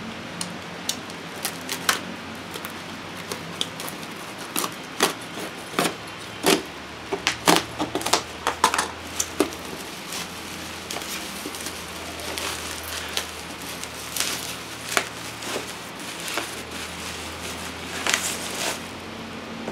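Plastic wrapping and packing tape crinkling and rustling as a taped parcel is cut open and pulled apart by gloved hands, with many irregular sharp crackles and clicks, busiest in the middle.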